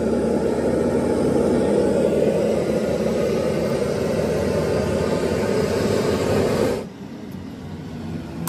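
Gas torch flame burning with a loud, steady rush as it heats a leak spot on a truck radiator's core for soldering. The noise drops away abruptly a little before the end.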